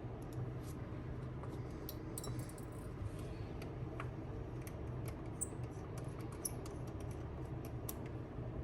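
Small irregular clicks and ticks of a precision Phillips screwdriver working the tiny screws out of an iPhone 7 Plus's Taptic engine bracket, over a steady low hum.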